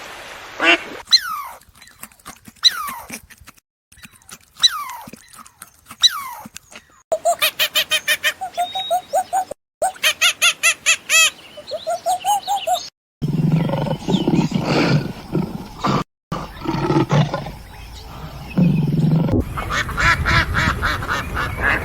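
A run of different animal calls cut one after another. First come a few high calls that fall steeply in pitch, then fast, evenly repeated calls. After that comes a lower, rough stretch, and near the end rapid repeated higher calls.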